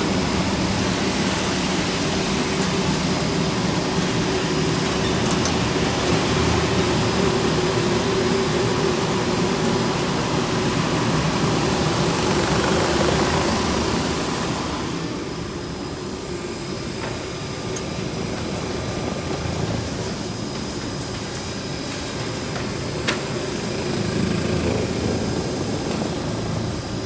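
Profile sanding machine running with a steady mechanical hum. A loud hiss over the hum eases a little past halfway, leaving mainly the machine's hum, with a single short click later on.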